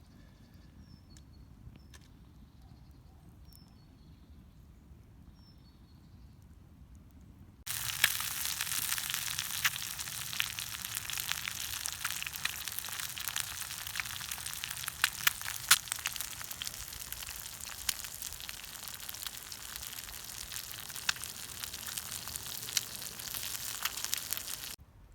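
Faint background with a few brief chirps, then, about eight seconds in, a sudden loud, steady sizzle dense with crackles and pops: beef searing over a campfire. The sizzle cuts off abruptly just before the end.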